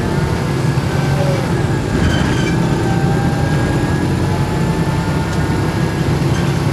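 Volvo B7RLE single-deck bus with a ZF automatic gearbox running: a steady low engine drone with thin whining tones above it that drift slightly in pitch.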